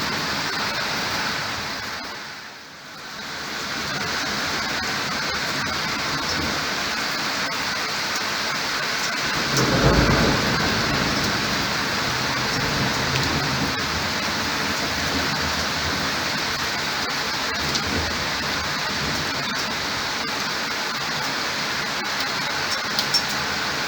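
Heavy rain falling steadily, with a thunderclap and low rumble about ten seconds in. The rain dips briefly and comes back up about two seconds in.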